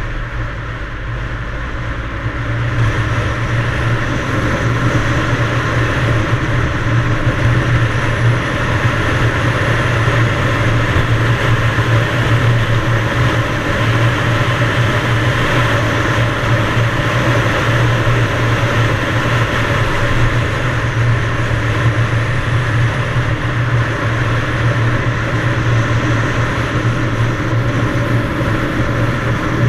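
Yamaha DT175 two-stroke single-cylinder dirt bike engine running under way while riding, with a steady rush of noise over it; it picks up about two and a half seconds in and then holds steady.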